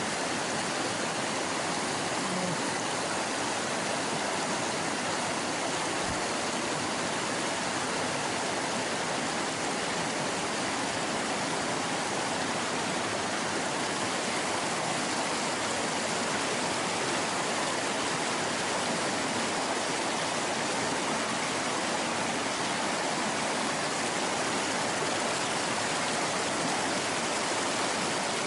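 Mountain stream rushing over rocks in a small cascade: a steady, unbroken rush of water.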